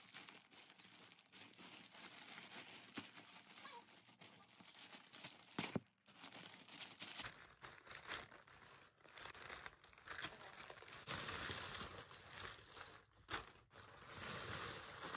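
Plastic poly mailer bag crinkling and rustling as it is pulled and wrestled open by hand without scissors, with louder spells of tearing plastic near the end.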